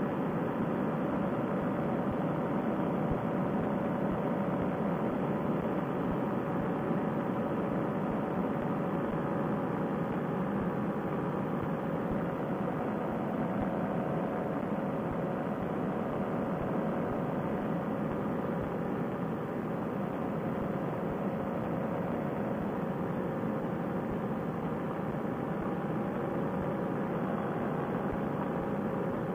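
Paramotor trike's two-stroke engine and propeller running at a steady cruise throttle, an even drone that holds the same level throughout.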